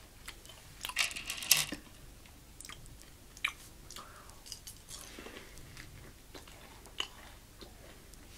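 Chewing and crunching candy-shelled dark chocolate M&M's, with scattered crisp crunches and clicks, loudest about a second in.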